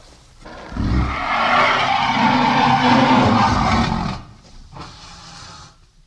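Dinosaur roar sound effect for a Daspletosaurus: one long, rough, rasping roar starting just under a second in and lasting about three seconds. It drops to a quieter growl that trails off near the end.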